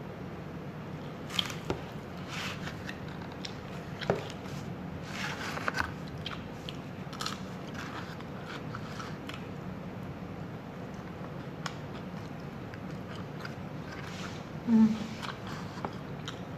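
Close-up mouth sounds of a person eating lasagna and garlic bread: biting and chewing with scattered small crunches and clicks. Underneath is a steady low hum, and there is one brief louder low sound near the end.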